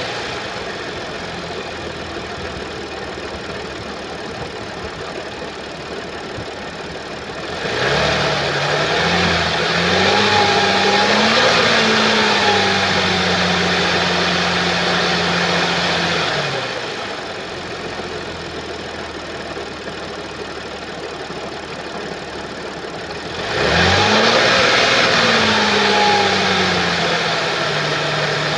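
2013 Audi S4 B8's 3.0 supercharged V6 idling, then revved up and held at raised revs for several seconds, dropped back to idle, and revved again near the end. The unusual engine noise comes from a timing chain that has jumped teeth.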